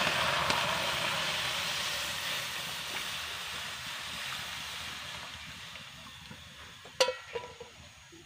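Milk poured from a kettle through a plastic strainer into a metal pan on the fire: a steady splashing rush that slowly fades as the pour tails off. A single sharp clink near the end.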